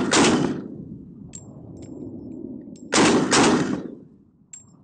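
Daniel Defense DDM4 5.56 semi-automatic rifle fired in rapid double shots: one shot right at the start, then a quick pair about half a second apart around three seconds in. Each report echoes away in a low rumble, with a few faint metallic pings in between.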